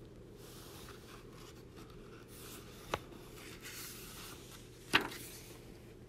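Paper pages of a hardcover picture book rustling and sliding as a page is turned, with two sharp clicks, about three seconds in and near the end.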